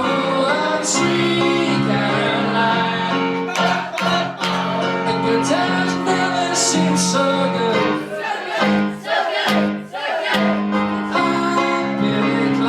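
Pop song played live, with singing over instrumental backing.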